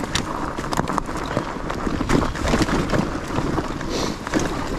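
Fat-tyre e-bike rolling down a rough dirt trail strewn with leaves and gravel: tyres crunching and the bike rattling in a dense run of small irregular clicks and knocks, with wind buffeting the microphone.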